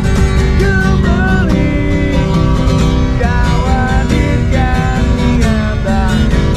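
A man singing while strumming an acoustic guitar: a street busker's song, with the sung melody over a steady strummed accompaniment.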